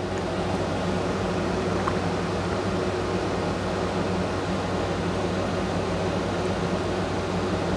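Window air conditioner running: a steady hum under even fan noise.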